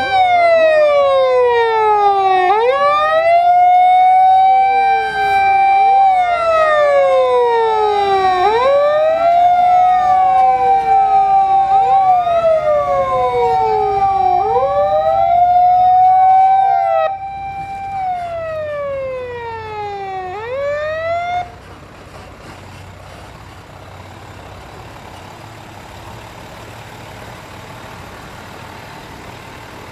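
Two Japanese fire engine sirens wail together, out of step: each holds a high tone, slides down and snaps back up about every three seconds. One cuts off a little past halfway and the other about four seconds later, leaving the steady running of heavy vehicle engines.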